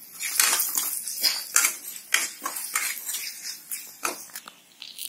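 Flat steel spatula scraping and clinking against a metal kadhai while spices are stirred and roasted in a little oil. The strokes come about two or three a second and thin out near the end.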